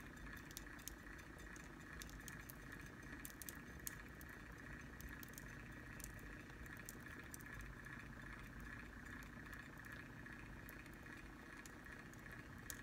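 Small electric motor of a tumbler cup turner running with a faint steady hum, with faint scattered clicks.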